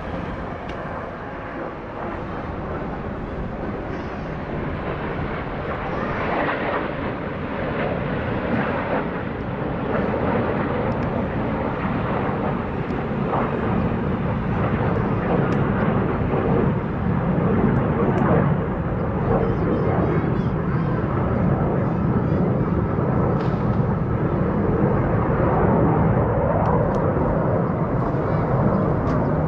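Military aircraft passing overhead in an air-parade formation: a steady engine rumble that grows gradually louder.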